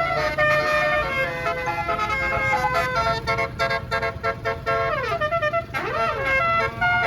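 Bus 'telolet' multi-note Basuri air horn playing a fast tune of stepped notes, with a run of short rapid blasts in the middle and sliding up-and-down sweeps near the end, over the low rumble of the bus engine.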